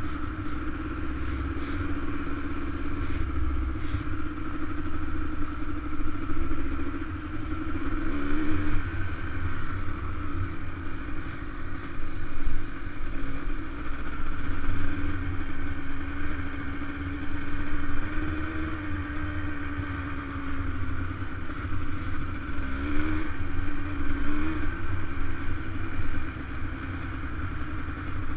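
Dirt bike engine running at a steady cruising speed on a gravel trail, its pitch wavering briefly with throttle changes about eight seconds in and again a few seconds before the end. Wind buffets the helmet-mounted microphone throughout.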